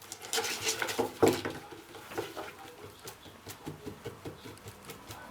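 Cats' paws pattering and knocking on a cat exercise wheel: a quick scramble of taps and clatter, with one loud thump a little over a second in, then scattered lighter taps.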